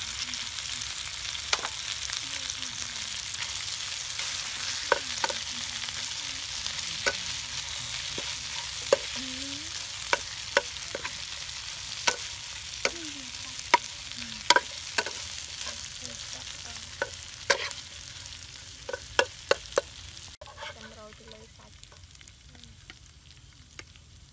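Sliced pork belly stir-frying with basil and chili in a nonstick pan: a steady sizzle, with a metal spatula clicking and scraping against the pan many times. The sizzle slowly fades and drops off suddenly about four seconds before the end, leaving only the spatula clicks.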